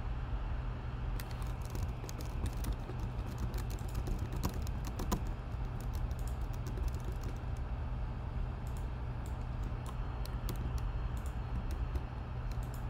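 Typing on a computer keyboard: irregular bunches of key clicks with short pauses between them, over a steady low hum.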